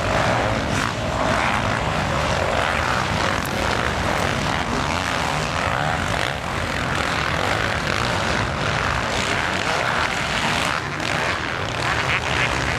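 Several motocross dirt bikes' engines running and revving on the track, overlapping into one loud, continuous engine noise.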